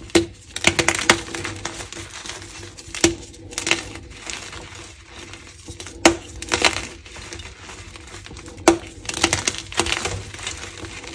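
Pigment-coated gym chalk block squeezed and crushed between fingers: a string of sharp cracks and crunches a few seconds apart as it breaks, with softer crumbling of chalk powder between.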